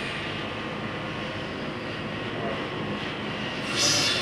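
Steady mechanical drone of workshop machinery, with a short hiss near the end.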